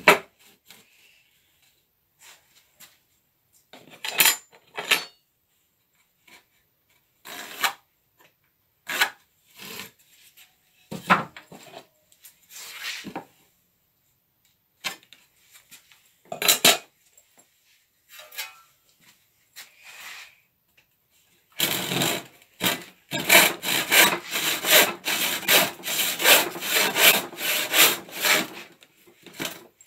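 Scattered knocks and scrapes as a wooden board is set in place and a pencil line is marked. About two-thirds of the way through, a hand saw starts cutting the board in fast, even back-and-forth strokes.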